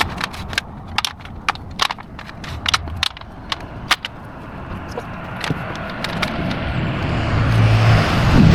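A quick run of sharp snaps and crackles, like twigs and branch cuttings being broken and handled. From about halfway, a passing car's rushing noise builds and grows louder toward the end.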